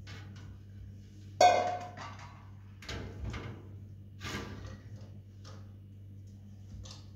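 A series of knocks and clatters, about six in all, the loudest about a second and a half in with a short ringing clink, over a steady low hum.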